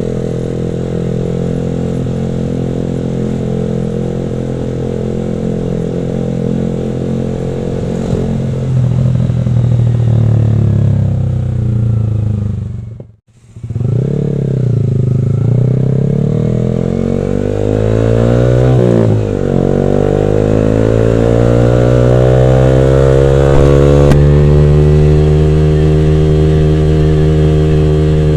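Yamaha R15 V3's single-cylinder engine through an aftermarket D'Crow Blaxton GP carbon exhaust, running steadily and then rising in pitch. About halfway through the sound breaks off for a moment, then the engine note swings down and up before holding at a higher steady pitch.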